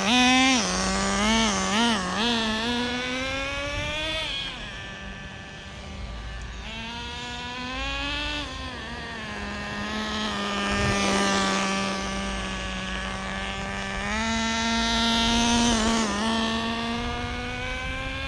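Traxxas Nitro Rustler's small 2.5 nitro engine running during its break-in on quarter throttle, revving up and down in quick blips in the first couple of seconds. Its note then rises and falls and fades a little before growing louder again toward the end as the car is driven around.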